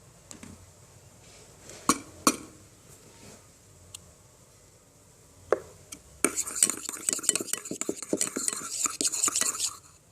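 A few separate sharp clicks and taps, then from about six seconds in a quick run of scraping and clicking as a utensil stirs glue and pink colouring in a plastic container, stopping just before the end.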